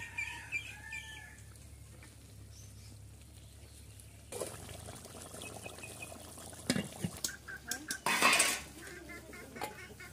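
A metal spatula stirring and scraping in an iron wok of curry, with clinks of steel plates and pots; scattered clicks in the second half and a loud brief scrape a little past eight seconds in.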